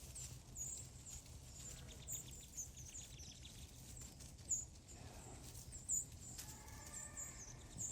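Small birds chirping over and over in short, high-pitched calls against a faint, steady low background noise. There are a couple of brief, louder sounds about halfway through.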